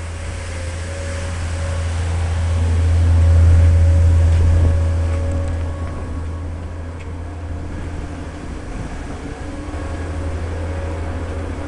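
Deep, steady droning hum of an air compressor. It swells louder about three to four seconds in, then eases back to a steady level. This is the low vibration that comes and goes in fits and starts.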